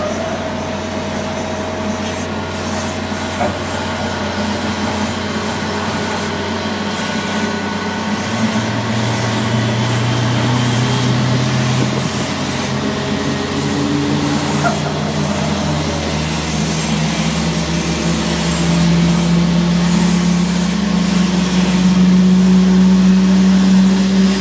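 Pushback tug's engine working steadily under load as it pushes the airliner back by its nose gear. The engine note steps up in pitch about a third of the way in, then rises again and grows louder over the last several seconds.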